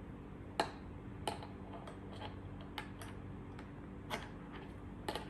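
Light plastic clicks and taps of small computer-kit parts being handled as a cable connector is pushed into a circuit board, a handful of separate clicks spread over the few seconds.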